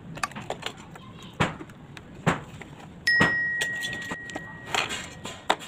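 Scattered clicks and knocks of hands handling a clear plastic rotary-tool kit case and working its lid latches. About three seconds in, a bright bell-like ding starts suddenly and rings on, fading slowly.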